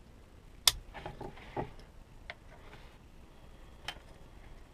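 Handling noise from a Victorinox pocket knife: one sharp click less than a second in, then a few fainter clicks and light rustles.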